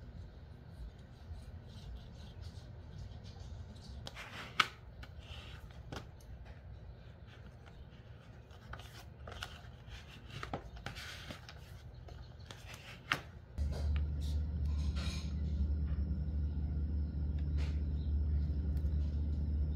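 Hands working paper and cardboard on a desk: scattered light taps, short rustles and the rub of a glue stick. About two-thirds of the way in a steady low hum starts and continues underneath.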